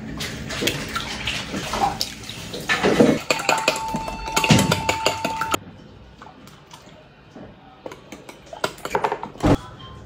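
Clinks, knocks and scraping of utensils against a glass mixing bowl as eggs are cracked and cake batter is stirred. The sounds are busy and louder at first, then drop off suddenly about halfway through to fewer, quieter clicks.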